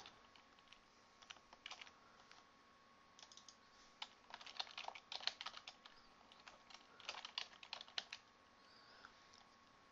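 Faint typing on a computer keyboard, in four short runs of keystrokes with pauses between, the longest from about four to six seconds in.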